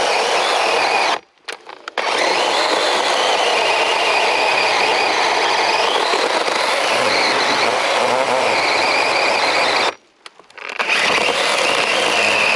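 DeWalt 12-inch cordless electric chainsaw running and cutting through a log about 12 inches thick, more than the roughly 8 inches it is meant for. The saw cuts out briefly about a second in and again near ten seconds in, then picks up and cuts on.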